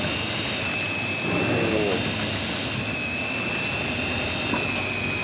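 Steady engine noise of a fishing boat: a continuous rumble carrying two high whining tones that shift slightly in pitch now and then.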